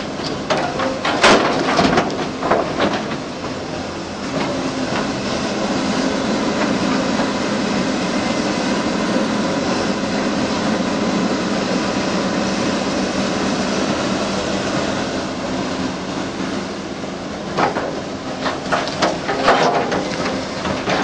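Crawler hydraulic excavator's diesel engine running steadily under load as it digs and swings, with a series of sharp knocks and clanks in the first few seconds and again near the end.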